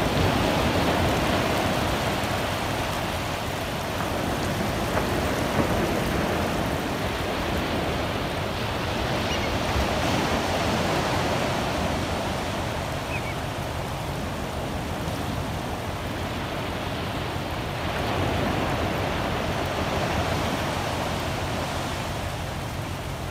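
Ocean surf: small waves breaking and washing up over a flat sandy beach. It is a steady rush that swells and eases every several seconds.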